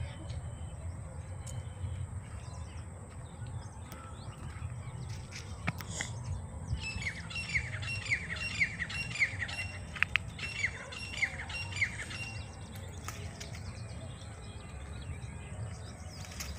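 Grey francolin calling: a run of repeated harsh falling notes, about three a second, lasting some five seconds with a short break midway, over a steady low rumble.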